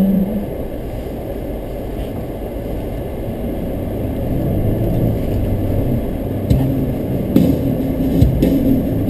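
Car on the move, a steady low rumble of engine and road noise, with a few sharp knocks in the second half.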